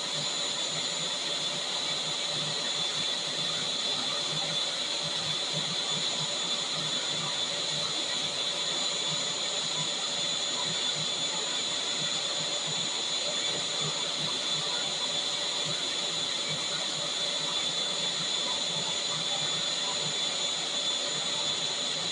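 Vacuum cleaner running steadily: a constant rush of air with a high-pitched motor whine over it.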